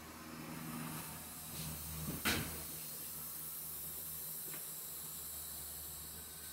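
Powder-coating chamber running with a steady low hum and hiss. A single sharp click comes about two seconds in, and a faint tick a couple of seconds later.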